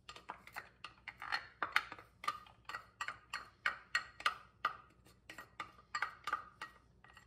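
Wooden spoon tapping and scraping a small glass bowl to knock minced garlic into a sauté pan: a quick run of light taps, about four a second.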